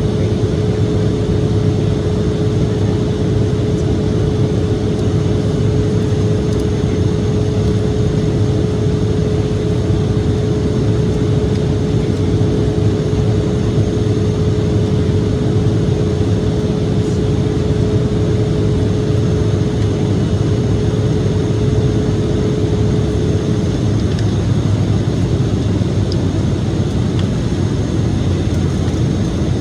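Steady cabin noise inside an Embraer E-175 jet in flight: the rush of air over the fuselage and the drone of its two turbofan engines. A steady hum runs under it and stops about 23 seconds in.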